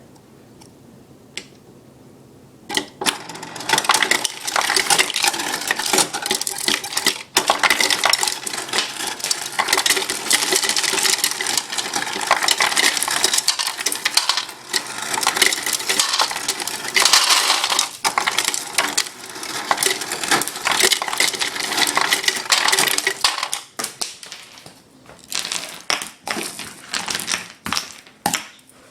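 Refrigerator ice dispenser dropping ice into a container: a dense clatter of cubes starting about three seconds in, with a short dip midway, then a few last pieces falling near the end.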